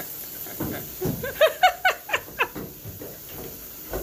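A domestic cat vocalizing in a quick run of short, pitched calls, several a second, some rising in pitch, from about a second in. A thump comes near the end.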